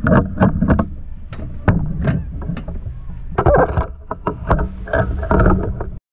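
Handling noise from reaching into a pickup's engine bay: a run of irregular knocks, clicks and rustling over a steady low hum. The sound cuts off abruptly near the end.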